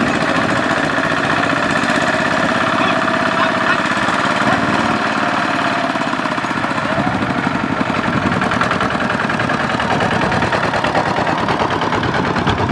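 Two-wheel walking tractor's single-cylinder diesel engine running hard with a rapid, even chugging while its mud-caked wheels haul a loaded trailer up out of a muddy paddy.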